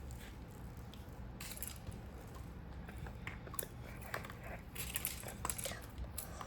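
Small craft pieces being handled on a table: scattered light clicks, taps and crinkling rustles, more frequent in the second half.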